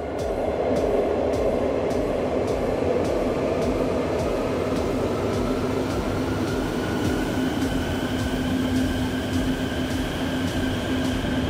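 Quito Metro electric train pulling into an underground station, its wheels rumbling loudly on the rails. A steady hum runs under it, and a faint whine climbs slightly in pitch in the second half.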